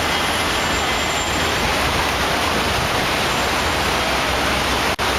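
Steady city street noise, a constant roar of traffic with no distinct events, briefly cutting out for an instant near the end.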